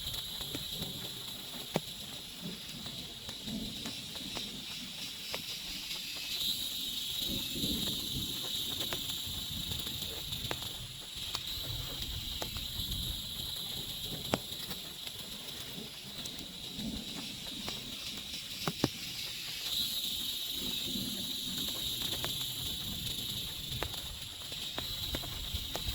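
Forest ambience of a steady high insect drone, swelling a little twice, with scattered sharp clicks and ticks, such as drips falling on a tent or tarp.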